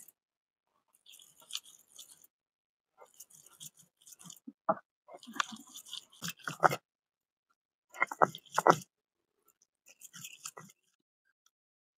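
Stone roller rubbed back and forth over a grooved stone grinding slab, crunching a coarse masala of roasted coconut, onion and tomato into paste. The strokes come in short gritty clusters with brief pauses, loudest around the middle.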